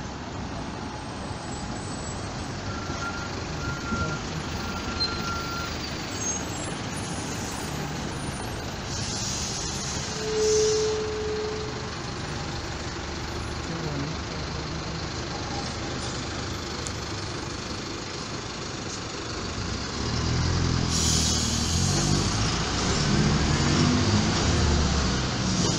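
City buses running past at close range, with hissing bursts from their air brakes about nine and twenty-one seconds in and a brief high note near the first hiss. The engine sound swells and is loudest near the end as a bus pulls by.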